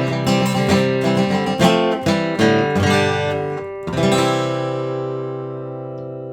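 Outro music: acoustic guitar strumming, ending on a final chord about four seconds in that rings out and slowly fades.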